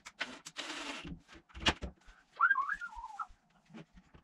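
Knocks and scraping from hands-on work at wooden base cabinets, with one sharp knock partway in. About halfway through comes a short, wavering high-pitched tone.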